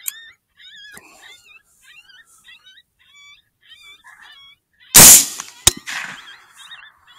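A 6.5 Grendel rifle shot about five seconds in, sudden and loud with a trailing echo, followed by a short sharp click. Under it runs a steady string of high, wavering coyote-like yips.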